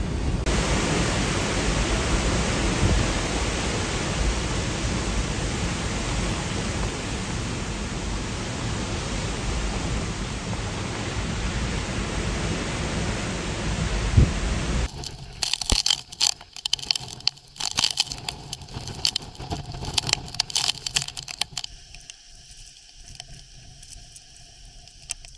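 Hurricane-force wind and heavy rain making a loud, steady noise. About fifteen seconds in it changes abruptly to quieter, gusty bursts that fade lower near the end.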